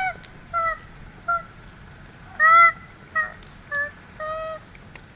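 A koala giving a series of short, pitched distress cries, one after another; the loudest comes about two and a half seconds in, and a longer one comes near the end.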